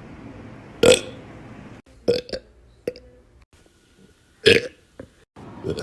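A young woman burping, a string of short, loud burps: one about a second in, two quick ones just after two seconds, another loud one about four and a half seconds in, and one more beginning near the end.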